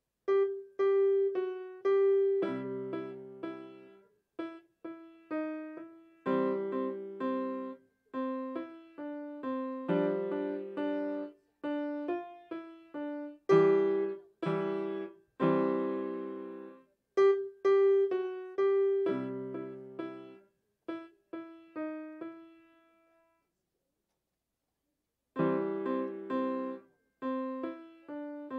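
Piano playing a slow melody over chords, each note struck and left to ring and fade. The playing stops for about two seconds near the end, then picks up again.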